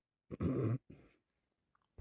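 A woman with a cold giving a short, low throat-clearing grunt about half a second in.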